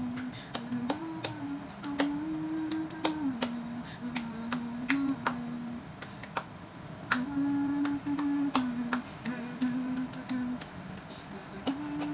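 A woman humming a simple tune that steps back and forth between two notes in short phrases, with scattered sharp clicks throughout.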